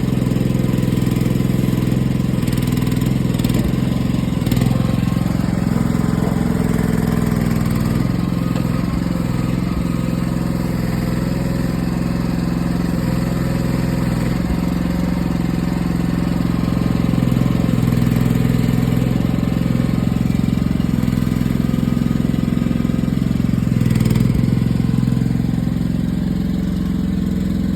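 A mini excavator's engine running steadily, its pitch stepping up and down a little as it works, with a few short knocks.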